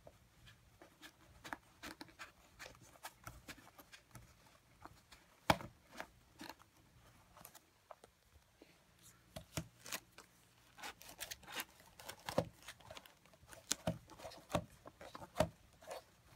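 Plastic clicks, taps and rustling as the fabric dust bag is handled and pushed onto the rear dust port of a Ryobi quarter-sheet sander; the sander's motor is not running. The clicks come thicker and louder in the second half.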